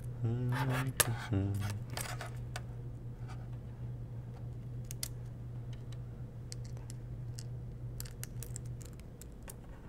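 Small metal nuts and bolts clicking and tapping against the tabletop and plastic parts as they are picked up and fitted by hand, in scattered light clicks with a steady low hum underneath. A voice hums briefly in the first second or so.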